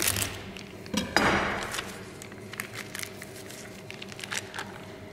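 Plastic vacuum bag crinkling as it is cut open and squeezed out, with a sharp clack about a second in followed by a louder rustle, then light scattered knocks against a small stainless-steel saucepan as the meat and jus go in.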